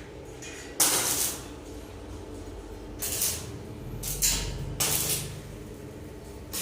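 Welding arc hissing and crackling in short bursts, four of them, each lasting about half a second, over a steady low hum.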